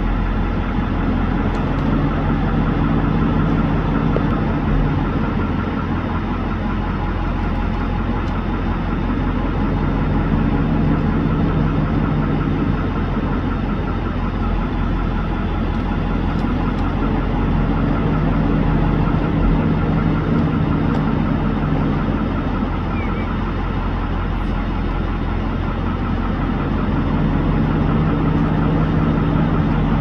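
Steady mechanical drone with a strong low hum. A deeper pair of tones swells in for about three seconds, roughly every eight seconds.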